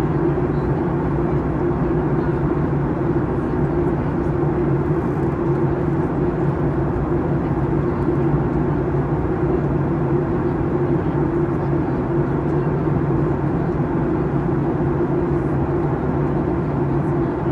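Steady cabin drone of a jet airliner in flight: engine and rushing-air noise with a low, even hum, unchanging throughout.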